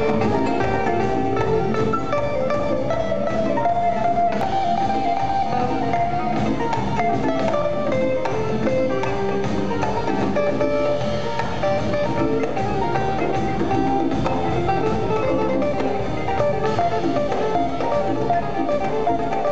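Live band playing continuous music, with plucked strings over hand drums.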